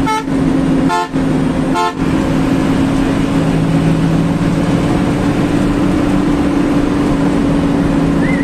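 Bus horn sounding three short blasts in the first two seconds, heard from inside the cab. Then the bus's engine and road noise run on as a steady hum.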